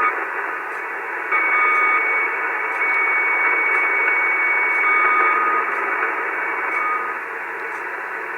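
Receiver audio from an Icom 730 HF transceiver on the 75-meter band: a steady hiss of static with a couple of thin whistles that start and stop, the noise on 3.8 MHz that the operator cannot identify. The hiss eases a little near the end.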